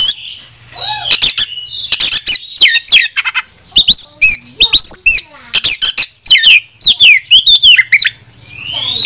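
Caged Oriental magpie-robin singing loudly: a fast, varied run of whistled notes that slide up and down, mixed with sharp clicking notes. A full territorial song that calls out rival males to fight.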